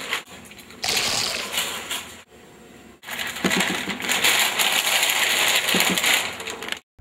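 Crinkly Doritos chip bag rustling as a hand digs into it, then a longer stretch of rustling with chips sliding as the bag is tipped up to the mouth, cutting off suddenly near the end.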